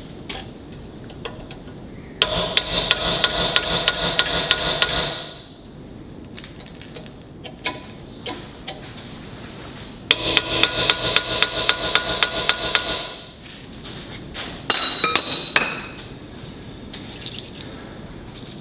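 Hammer driving a steel punch into the rusted, split tube of a heavy-truck tie rod held in a bench vise, in two fast runs of ringing metal-on-metal strikes, about five a second, to spread the tube at its clamp and knock loose the rust holding it. A brief metallic clatter follows the second run, then a few light clinks.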